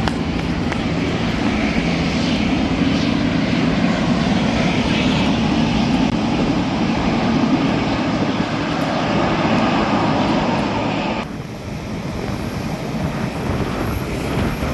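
Jet airliner engines running with a steady, loud rush and a low hum. About eleven seconds in, the sound cuts off abruptly to a quieter, different steady noise.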